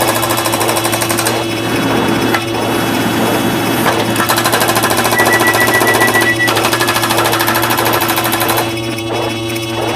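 A dense pile of many sound effects playing over one another at once: fast even ticking, steady electronic tones and an intermittent high beep, changing texture every few seconds.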